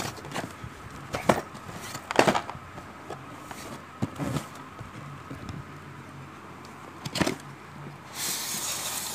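Handling noise: a few scattered sharp knocks and clicks, then about a second of rustling near the end as a cardboard microscope box is handled.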